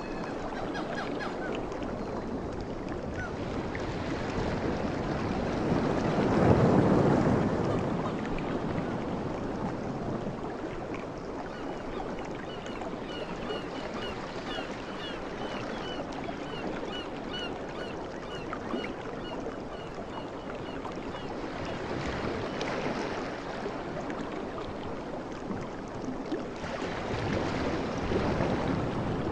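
Ocean waves washing in and receding, swelling into a surge around seven seconds in and twice more near the end. A bird chirps a quick run of short high notes for several seconds in the middle.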